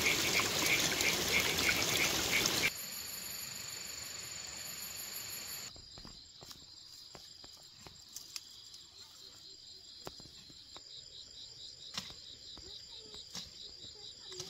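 Insects trilling in rapid, even pulses: a very high trill first, then from about halfway through a lower pulsing trill, with scattered light clicks. For the first few seconds a loud hiss covers everything and then cuts off suddenly.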